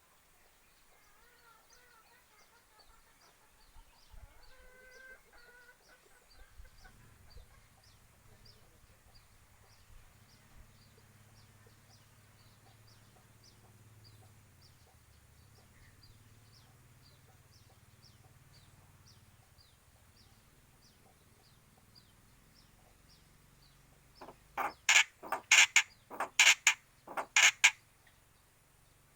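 Starling (jalak) giving a quick run of about eight loud, harsh scolding calls near the end, after faint twittering near the start. The calls are the angry calls of an agitated bird.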